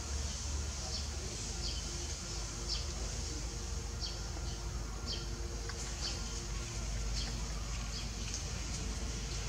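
Forest background sound: short high chirps repeating about once a second over a steady high hiss, with a low rumble underneath.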